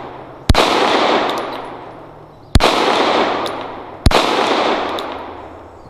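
Three 9mm pistol shots from a Glock 47 frame fitted with a Glock 19 slide, about two seconds and then a second and a half apart. Each shot is followed by a long echo that dies away over about a second and a half.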